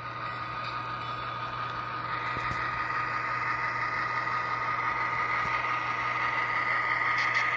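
SoundTraxx DCC sound decoder in an HO-scale BNSF diesel locomotive playing a steady diesel engine sound through its small onboard speaker, with a thin steady whine. It gets gradually louder as the locomotive rolls past.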